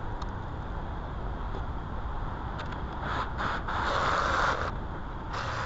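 Steady low workshop rumble, with two bursts of scraping noise in the second half, the first lasting over a second and the second shorter.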